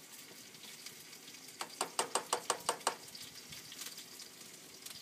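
Food sizzling in hot pans on a grill, a steady hiss, with a quick run of about eight sharp clicks a second and a half in.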